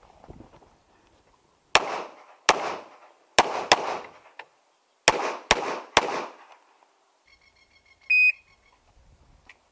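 Seven pistol shots at a practical-shooting stage, fired in quick pairs and strings, each with a short echo, followed about eight seconds in by a brief electronic shot-timer beep that gives the start signal.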